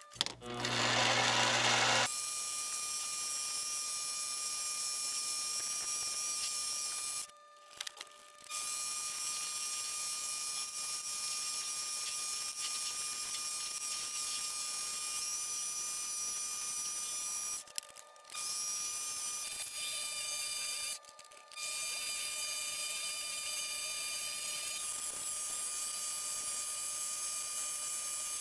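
Mini metal lathe running with a steady high-pitched motor whine while a cutting tool turns brass stock, shaping the head of a thumbscrew. A louder low hum fills the first two seconds, and the sound drops out three times for about a second each.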